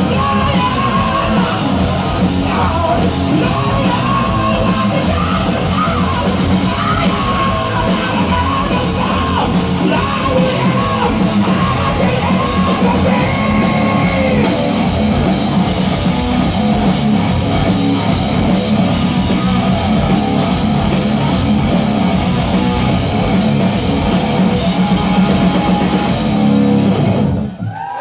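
A rock band playing live through a hall PA: electric guitar, bass and drum kit, with a lead line that bends in pitch over the top in the first half. The song stops suddenly about a second before the end.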